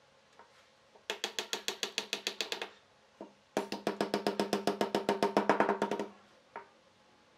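Small hand hammer tapping rapidly along thin wooden strips to seat them in a chair's seat frame, about ten sharp taps a second. There are two runs: a short one about a second in, and a longer, louder one from about halfway through.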